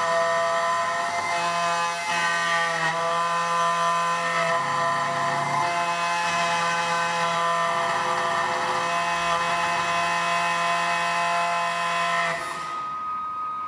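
SEC-E9 CNC key machine milling a Honda HON66 key blank: its cutter spindle and drive motors run with a steady whine made of several held tones that shift in pitch as the cut moves along the blade. The machine stops abruptly about 12 seconds in.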